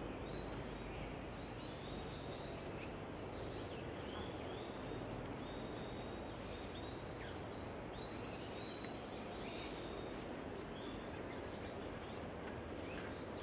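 Birds calling in the trees with short, high chirps and rising and falling whistles, repeated every second or so, over steady outdoor background noise.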